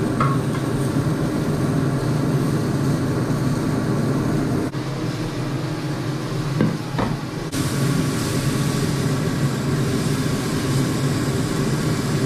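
Beef steak and garlic sizzling in oil in a frying pan over a gas burner, under a steady low rumble; a couple of sharp clicks about seven seconds in.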